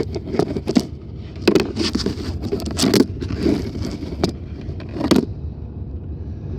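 Mercedes-Benz 190E on the move, heard from inside the cabin: a steady low road and engine rumble with irregular sharp clicks and rattles through it.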